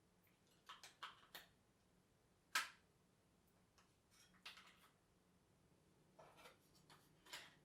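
Faint, scattered plastic clicks and taps from a Tascam DR-22WL recorder being handled, about seven short clicks with the loudest about two and a half seconds in.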